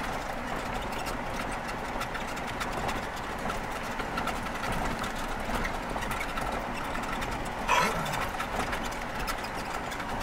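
Jeep driving slowly on a gravel road, heard from inside the cab: the engine running under steady road noise, with many small clicks of gravel crackling under the tyres. A short, louder sound stands out about three-quarters of the way through.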